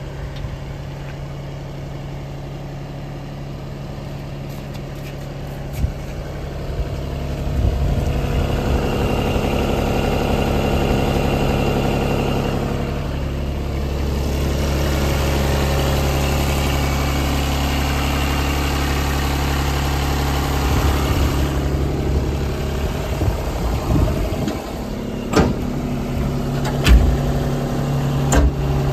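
JCB 16C-1 mini excavator's three-cylinder diesel engine idling steadily, growing louder about eight seconds in. A few sharp knocks near the end.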